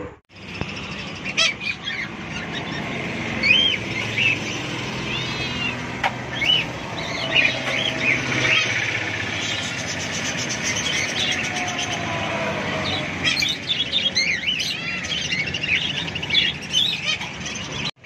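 Many caged birds chirping and calling: short, quick chirps and whistles one after another, over a steady background noise.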